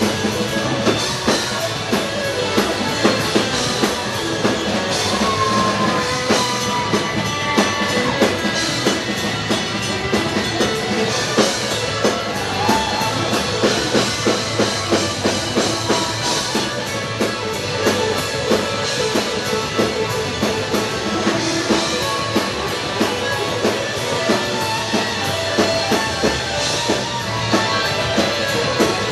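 Live rock band playing: electric guitars and electric bass over a drum kit keeping a steady beat.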